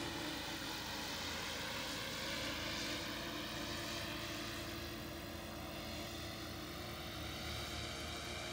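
Electric motors and propellers of a small tandem tilt-wing VTOL testbed in flight: a steady whine made of several tones at once, drifting slightly in pitch.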